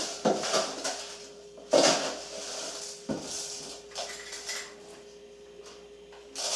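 A metal tablespoon clinking and scraping as pickling salt is poured into it from a carton and leveled off with a knife: a few short separate clinks and scrapes, the loudest about two seconds in, over a faint steady hum.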